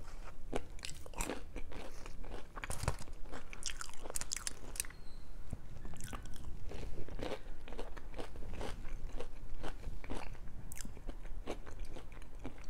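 Close-miked chewing of baked crinkle-cut fries, with many sharp, irregular crunches.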